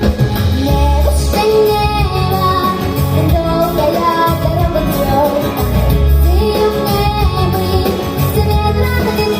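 A young girl singing a song in Russian with instrumental accompaniment.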